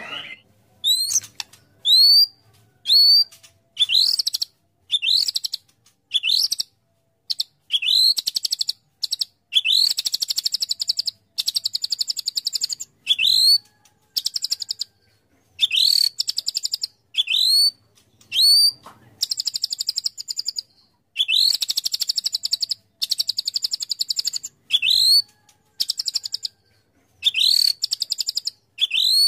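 White-rumped shama singing: short, rising whistled notes about once a second, alternating with long, rapid, stuttering rattles of one to two and a half seconds.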